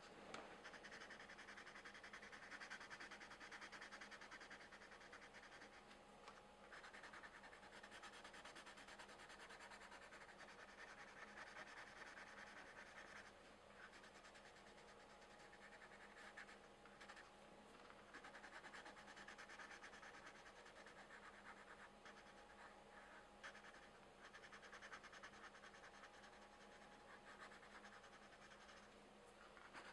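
Colored pencils scratching across coloring-book paper in long continuous stretches of strokes with short pauses, quiet, over a faint steady hum.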